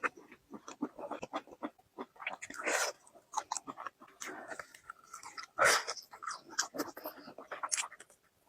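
Close-miked chewing and biting of a large pistol chicken drumstick, with irregular sharp crunches and wet mouth sounds; the loudest bite comes about five and a half seconds in.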